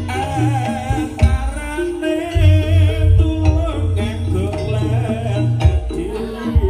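East Javanese jaranan music: a wavering sung melody over hand drums and a deep, pulsing low beat.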